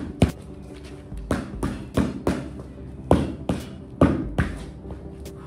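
Boxing gloves smacking into focus mitts during pad work: about a dozen sharp slaps, thrown in quick combinations of two or three.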